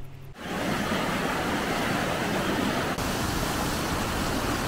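Steady rush of a mountain stream cascading over rocks in white water, setting in about half a second in.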